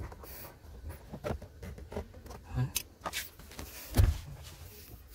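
Hand-fitting noises of a chrome 12 V socket being worked into a plastic dashboard panel: scattered small clicks and scrapes of metal and plastic, with one sharp knock about four seconds in.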